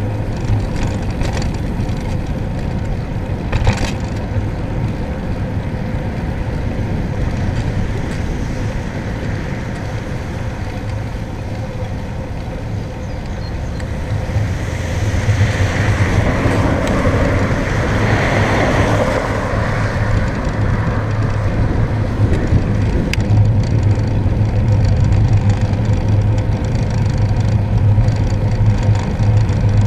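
Wind rushing over the microphone of a road bicycle being ridden, with tyre hiss on a wet road. A swell of noise rises and falls about halfway through, and there is a single sharp click a few seconds in.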